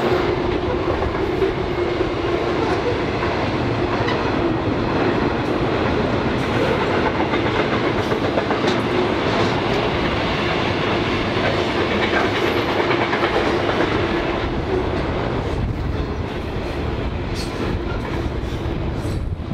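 Train rolling past, its wheels clattering steadily on the rails, easing off a little near the end.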